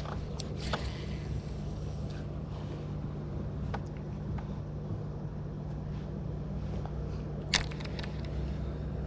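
A steady low motor hum under a few short sharp clicks from handling a baitcasting rod and reel, with one louder click about three quarters of the way through.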